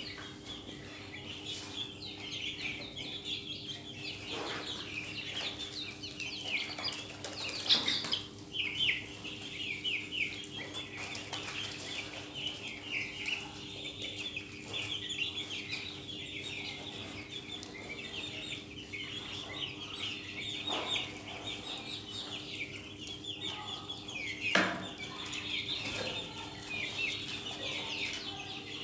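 A flock of young Australorp chickens peeping and chirping continuously in a dense high chatter, with an occasional louder single call. A steady low hum runs underneath.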